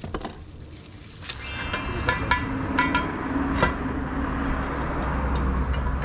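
Sharp metal clinks from a steel jack stand being handled and its ratchet column adjusted, several irregular clicks over a steady low rumble.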